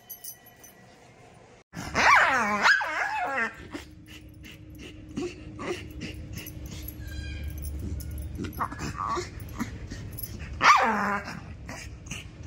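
A pet dog barking and crying, with two loud drawn-out calls that fall in pitch: one about two seconds in, the other near the end, and shorter calls between them.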